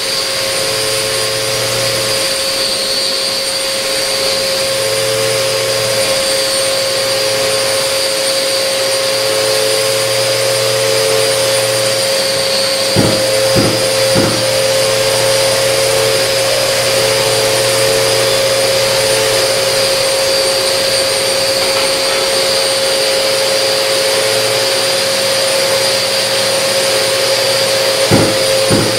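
Festool RG 130 E renovation grinder with a diamond cup wheel, with its dust extractor drawing through the hose, running steadily with a high whine as it grinds down levelling compound on a cement screed floor. A few light knocks come about halfway through and again near the end.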